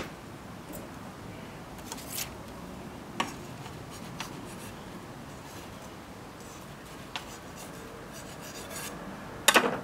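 Knife blade scraping and trimming the edge of a clay slab on a wooden board, a few short scrapes and light taps spread out.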